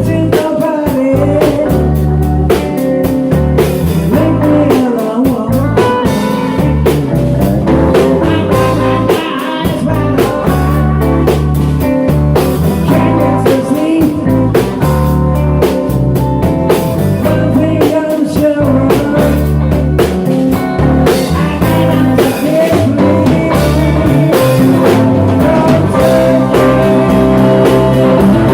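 Live rock band playing a bluesy rock song: electric guitar, bass and drum kit with a steady beat, and a singing voice over them.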